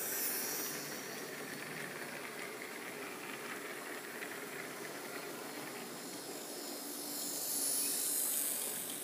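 Model railway train running past on the track: a steady rushing hiss of the wheels on the rails and the locomotive's small motor, louder and brighter at the start and again near the end.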